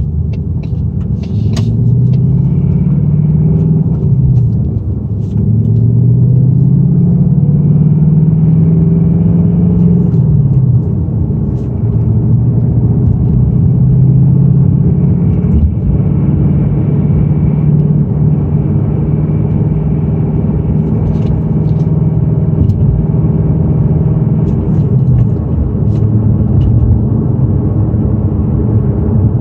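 2018 Ford Mustang GT's 5.0 Coyote V8 running while driving, its pitch rising and dropping several times, with an engine rattle that the owner takes for piston slap.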